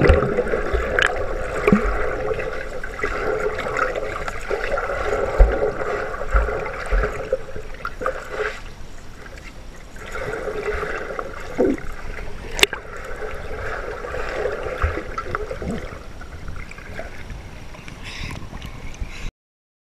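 Muffled water sloshing and bubbling heard through an underwater camera as a swimmer moves through the pool, with a few sharp clicks and knocks. The sound cuts off suddenly near the end.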